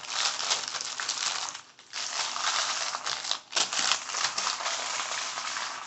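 Plastic fruit snack pouches crinkling and rustling as they are gathered up by hand, with two short breaks, about two seconds in and again about three and a half seconds in.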